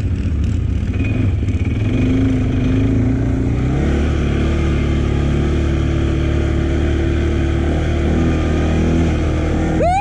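Engine of a CFMOTO CForce quad bike (ATV) running under way, heard from the rider's seat. Its pitch shifts during the first few seconds as the rider works the throttle, then it holds a steady cruising note.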